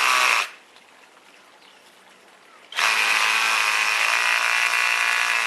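Blucky cordless pressure washer running, its motor and pump giving a steady whine under the hiss of the spray. It stops about half a second in, then starts again abruptly nearly three seconds in and keeps running.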